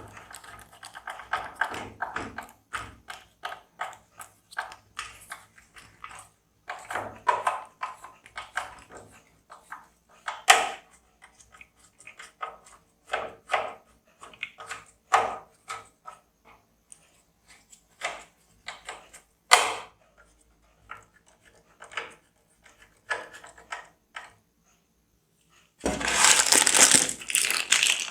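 Hands handling computer parts and packaging: irregular clicks, taps and light rustling, with a louder rustle lasting about two seconds near the end.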